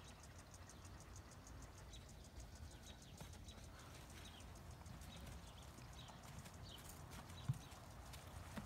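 Faint hoofbeats of a horse taking a few steps onto a tarp laid over dirt, with one sharper thud about seven and a half seconds in.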